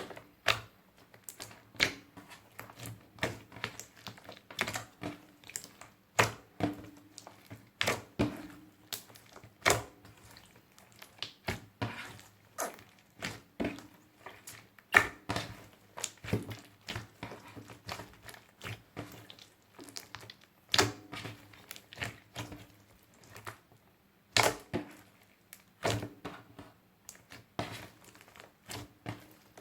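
Clear slime, loaded with glitter, makeup and beads, being kneaded and folded by hand, giving irregular sticky clicks and pops, a few a second.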